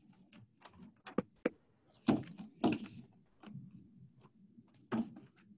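Paper documents being handled: short bursts of rustling and shuffling as pages are moved, with two sharp taps about a second in.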